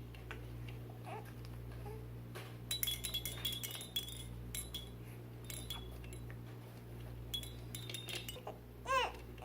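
Light clinking and tapping of small hard objects, bunched through the middle, then a baby's short vocalization rising and falling in pitch just before the end, over a steady low hum.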